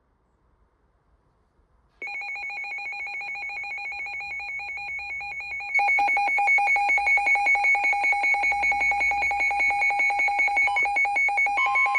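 Electronic alert tone, a rapid warbling trill on two steady pitches, starting about two seconds in and getting louder about six seconds in; a further steady tone joins near the end.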